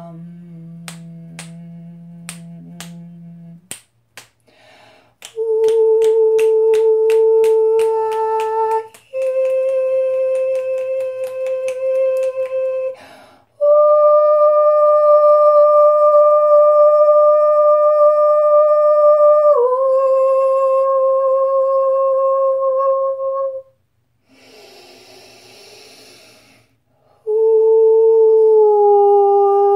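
A woman's voice toning long, steady sung vowel notes, each held for several seconds at one pitch and stepping between pitches; the longest note drops a step partway through. It opens with a low hum and a run of sharp clicks, clicks continue under the first note, and a breathy exhale comes near the end before a last note that slides slightly down.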